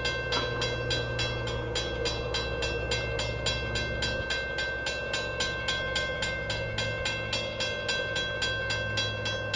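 Railway grade-crossing bell ringing steadily at about four strikes a second, its ringing tones held between strikes, over a low steady hum.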